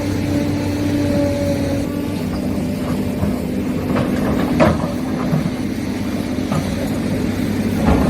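Huina 1593 RC excavator's electric gear motors running with a steady whine as it works. There is a sharp knock about four and a half seconds in and another near the end.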